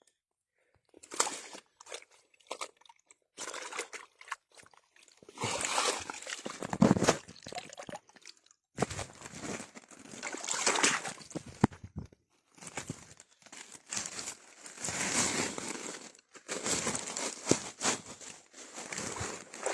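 Wet mesh eel trap net being handled with a catch of wild rice-field eels inside: rustling and crinkling of the net with sloshing and pouring water, in irregular bursts.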